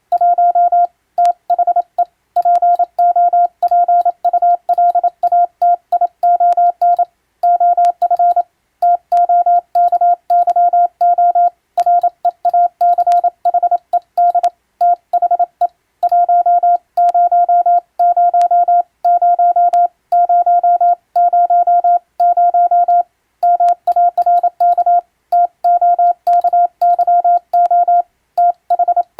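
Morse code: a single steady mid-pitched tone keyed on and off in a fast stream of dits and dahs, with short pauses between letter groups. It is an English-language radiotelegram sent by hand on a telegraph key.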